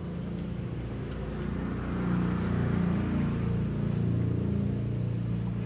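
Low engine hum that swells through the middle and eases off near the end.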